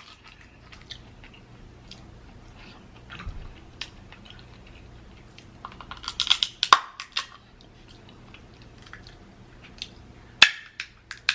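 Close-up eating sounds: chewing, and the crackle and snap of crab leg shells being broken open, with a cluster of sharp cracks about six seconds in and a single sharp snap near the end.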